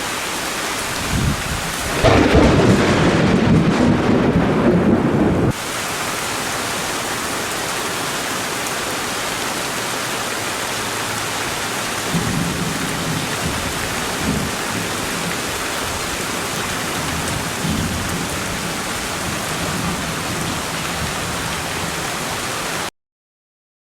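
Heavy rain pouring steadily. A loud low rumble of thunder comes in about two seconds in and cuts off abruptly a few seconds later, and fainter rumbles follow near the middle of the downpour.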